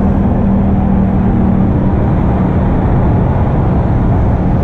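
Wind rumble on the microphone of a camera on a moving bicycle, mixed with passing road traffic including motorcycles. A steady hum fades out about two seconds in.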